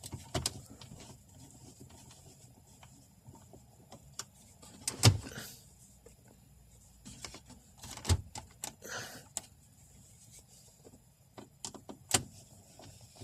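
Scattered clicks and knocks of hard plastic dashboard parts and a screwdriver being handled as a car radio is refitted, the loudest knock about five seconds in.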